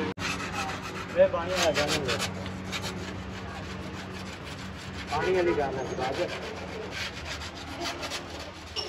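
Metal hand scraper scraping over the pitted lower sill of a car's steel body in quick, repeated strokes.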